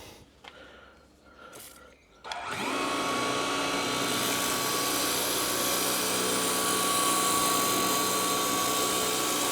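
DeWalt DCMPW1600N cordless 18-volt pressure washer's motor and pump starting up about two seconds in, whining up briefly and then running steadily at speed setting 1 with a steady whine and hiss.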